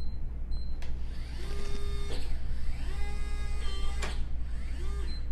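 Smart lock's small motor driving the deadbolt during its reset calibration, learning which way the door opens: two whirring runs of about a second each, each ending with a click, then a shorter run near the end. A few short high beeps come near the start and the end.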